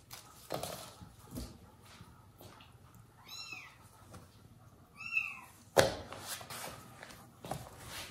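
A ginger kitten mewing twice, two short high cries about two seconds apart, with a sharp thump just after the second and light taps and scratches around them.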